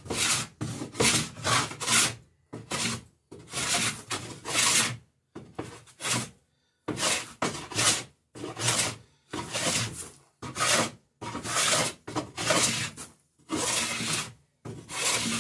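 Hand plane shaving wood along the edge of a boat plank in short, quick scraping strokes, about one a second, with a brief pause about six seconds in. It is cutting the bevel on a garboard plank.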